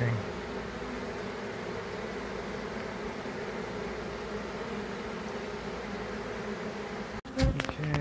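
A honeybee swarm buzzing steadily, massed at the entrance of a swarm box and fanning to draw their queen inside. Near the end the buzzing breaks off for an instant and a few loud knocks follow.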